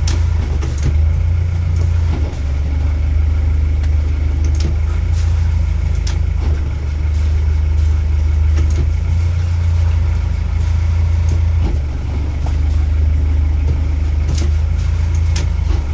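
Kent 28 motorboat's engine running at low revs, a steady low hum, with a few faint knocks over it.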